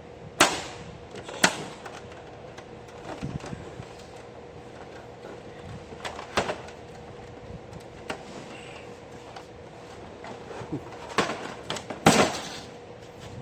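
Plastic cover panel of an HP M401 laser printer knocking and clicking as it is pushed and worked to snap it back onto the printer body: a few sharp knocks spread out, with a cluster of them near the end, and the cover does not seat.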